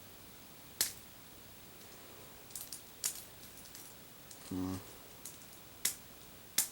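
Sharp, spaced-out plastic clicks from a BakuTech Bakugan figure's hinged parts being opened and snapped into place: four louder clicks with a few fainter ticks between them.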